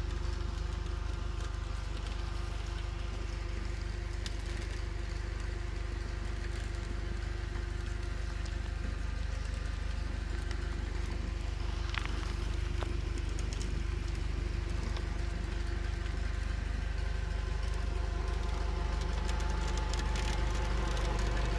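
YuMZ-6 tractor's four-cylinder D-65 diesel engine running steadily while powering a rear-mounted forestry winch, a Star 66 truck winch fitted to the tractor; it grows a little louder near the end.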